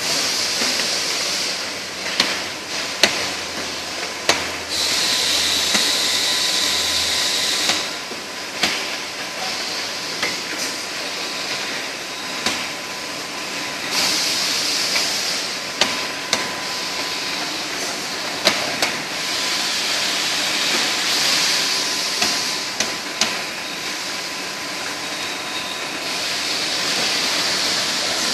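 PET bottle filling and capping line running: a continuous machinery noise with a faint steady whine, swelling every few seconds into a high hiss that lasts a few seconds, and scattered sharp clacks of bottles and machine parts.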